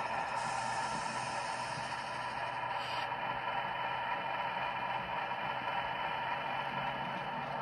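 Model BNSF diesel locomotive rolling slowly along the layout track: a steady, even mechanical hum and whir from the running model.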